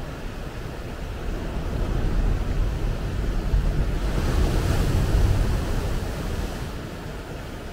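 Ocean surf: a wave builds, then breaks onto the beach and against the boulders of a rock breakwater. The sound swells to a rushing crash with spray about four seconds in, then fades back to a low wash near the end.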